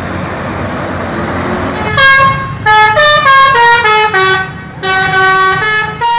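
A tour bus's multi-tone "telolet" horn plays a tune of stepped notes, rising and falling with short breaks, starting about two seconds in after a steady rush of noise.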